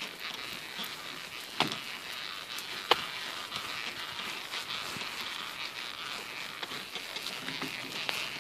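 Dog pram rolling along a path: a steady rolling hiss from the wheels, with a few sharp clicks, two of them clear about one and a half and three seconds in.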